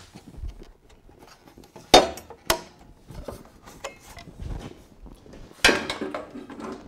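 Table saw's clear plastic blade guard being worked loose and lifted off: a few sharp clanks and clicks, the loudest near the end with a short ring.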